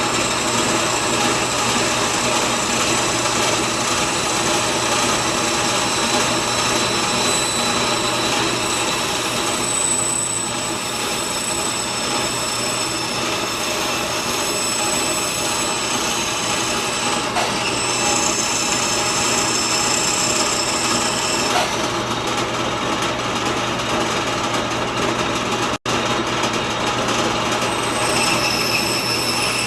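Band saw running and cutting out walnut letters, a steady motor hum under the blade's changing whine as it works through the wood. The sound breaks off for an instant near the end.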